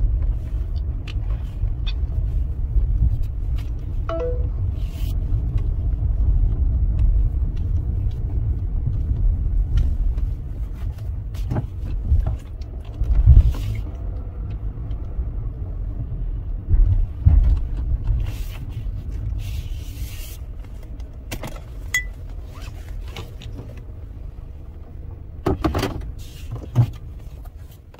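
Low engine and road rumble inside a car's cabin as it is driven slowly, easing off about halfway through, with a few scattered clicks and knocks.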